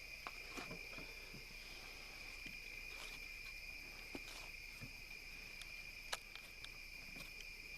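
Steady high-pitched chorus of insects, crickets or similar, with a few faint scattered clicks and knocks.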